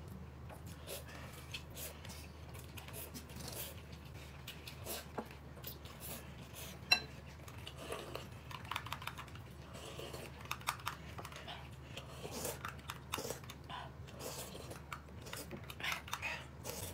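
Quiet table sounds of eating: scattered small clicks of cutlery against bowls and dishes, with chewing, over a faint steady low hum.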